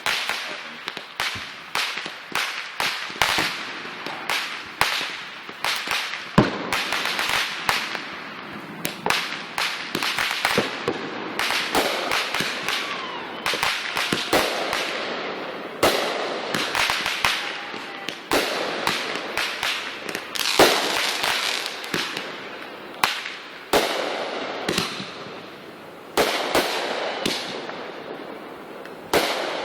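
Consumer fireworks going off in quick succession: many sharp bangs with crackling between them, one after another without a break.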